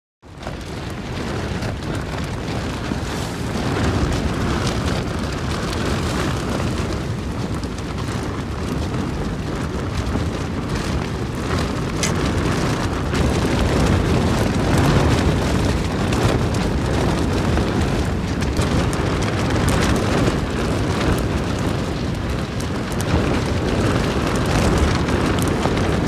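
Strong wind and driving rain battering a tent, with heavy gust rumble on the microphone and a dense crackle of rain on the fabric.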